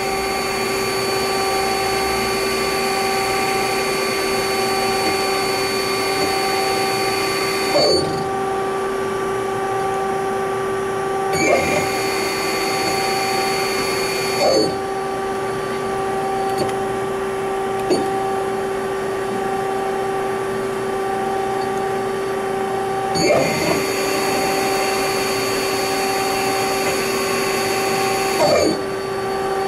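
Mazak Multiplex 4200 CNC lathe running a machining cycle: a steady machine hum and whine with a higher whine that switches on and off in long stretches. Six short knocks come a few seconds apart.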